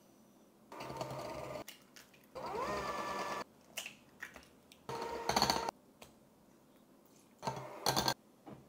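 KitchenAid electric hand mixer running in four short bursts, its motor whirring with the beaters in the batter; in the second burst the pitch rises as it speeds up. A few light clicks fall between the bursts.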